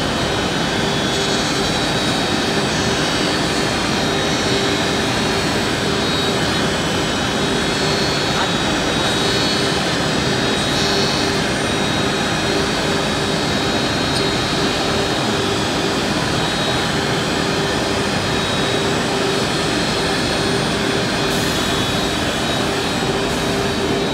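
Four-head CNC mortising machine's high-speed router spindles running and cutting mortise slots in wooden rails: a steady whine over the noise of the cutting.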